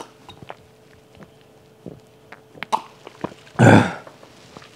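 A man coughs once, hard, about three and a half seconds in, his throat burning from a Carolina Reaper chili chip. Small clicks and taps come before it as the milk glass is handled on the wooden table.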